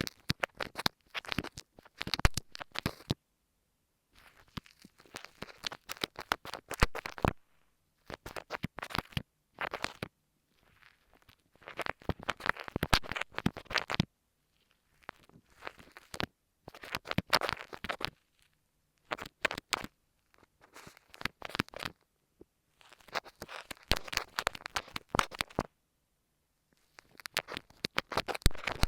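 Kinetic sand slime squished and kneaded right against an earphone microphone: bursts of dense crackling clicks, each one to three seconds long, with short silent pauses between them.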